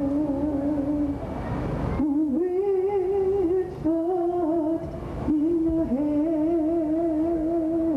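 Slow ceremony music: a solo melody of long held notes with a wavering vibrato, stepping to a new pitch every second or two. A brief rush of noise comes between notes about a second in.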